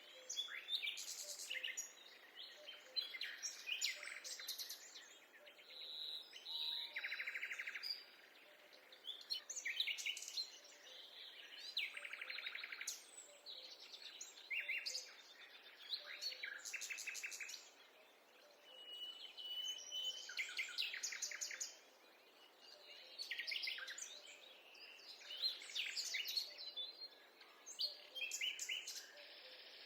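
Several songbirds singing and calling over one another, with short chirps and rapid trills coming and going every second or two.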